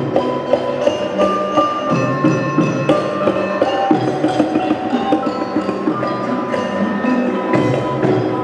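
Gamelan ensemble playing dance music: struck bronze metallophones ringing in a busy melody over hand-drum strokes, several strikes a second.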